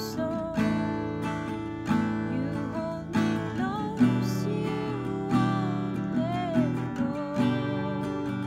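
Acoustic guitar strummed in chords, with a sharp strum about once a second, and a voice singing a slow, wavering melody over it.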